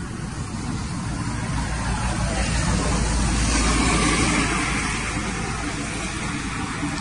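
A passing motor vehicle: a steady rumble that swells to its loudest about three to four seconds in, then fades.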